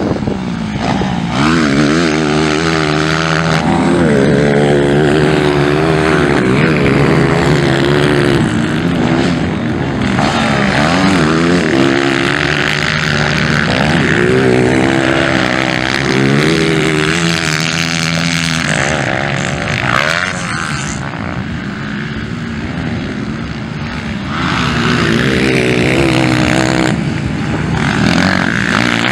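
Motocross bike engines revving hard as riders race around the dirt track, the pitch rising and falling with throttle and gear changes, at times several bikes at once. The engines ease off for a few seconds a little past the middle, then rev up again.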